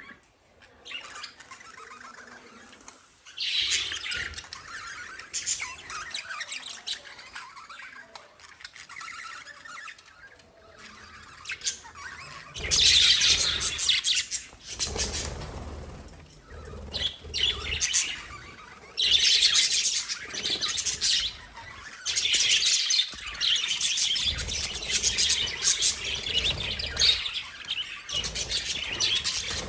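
Small pet parrots chirping and squawking in quick, busy runs of calls. The calls are sparse for the first dozen seconds, then come louder and nearly continuous from about halfway.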